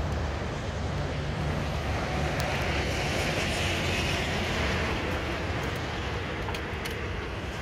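Steady low motor rumble, with a broad rushing sound that swells and fades in the middle, like a vehicle or aircraft passing by.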